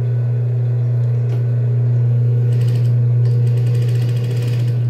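Industrial straight-stitch sewing machine: a steady motor hum, then from about halfway through a fast run of stitching, the needle mechanism chattering rapidly, which stops just before the end.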